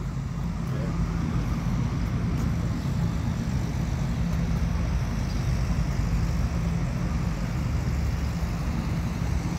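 Steady low drone of motor vehicle engine noise, an even hum that holds with no distinct events.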